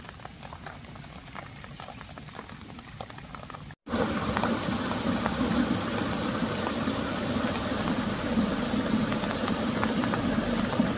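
Rain falling: a light patter with scattered drops at first, then, after a cut about four seconds in, a louder steady rain hiss.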